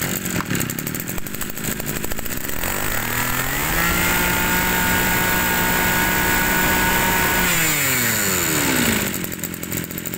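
Freshly pull-started 22cc two-stroke brush-cutter engine running at idle. A few seconds in it is revved up to a high, steady full-throttle whine for about four seconds, then let back down to idle.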